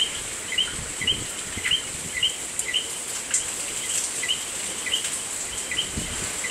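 Night frogs calling: a short two-note chirp, the second note rising higher, repeated about twice a second over a steady high hiss, with faint low wind rumble on the microphone.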